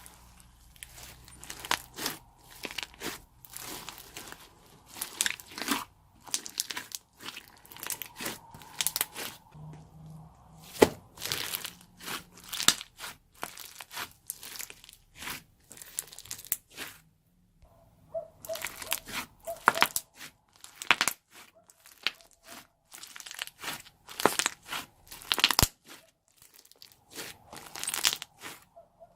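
Slime mixed with crunchy foam being squeezed and folded by hand: a dense, irregular run of crunching and crackling pops, with a brief pause a little past the middle.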